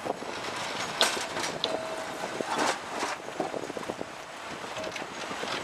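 Blackpool tram 626 running past on street track: a steady running noise of wheels on rail, with a few sharp knocks and short wheel squeals.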